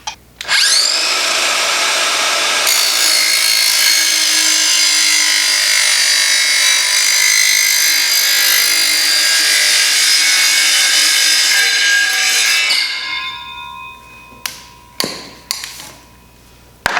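Circular saw with a Falkenwald multi-material blade spinning up and cutting through thick PVC pipe for about twelve seconds, then winding down with a falling whine. A few knocks follow near the end.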